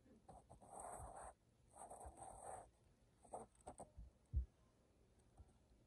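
Near silence, with two faint rustles early on and a few soft clicks and a low thump later.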